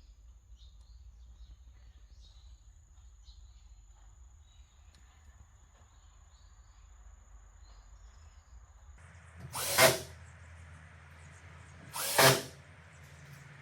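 A power tool run in two short bursts, about two and a half seconds apart, over a steady low hum. Before that there is only faint workshop room tone with a few soft ticks.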